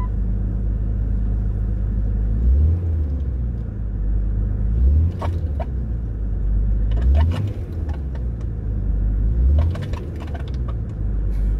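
1998 Jeep Grand Cherokee ZJ's straight-six engine idling with a steady low rumble, blipped four times at about two-and-a-half-second intervals. Light clicks come with some of the blips.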